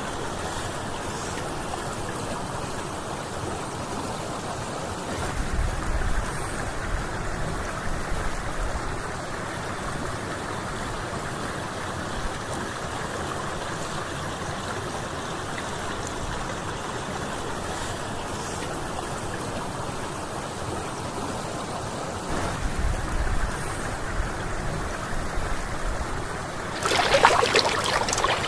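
Water flowing steadily, like a stream or irrigation channel. There are a few low rumbles, and a louder, brighter rush near the end.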